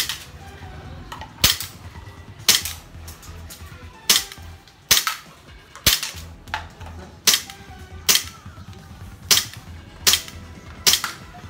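Airsoft pistol firing repeatedly: about a dozen sharp shots at irregular intervals of roughly a second.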